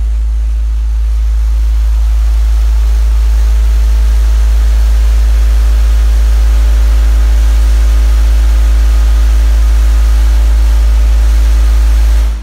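Car-audio subwoofers in a Chevrolet pickup playing a steady, very deep bass test tone, heard from outside the closed cab. The tone is held for about twelve seconds and cuts off suddenly at the end. It is an SPL burp at 1,930 watts that reaches about 154.7 dB on the meter.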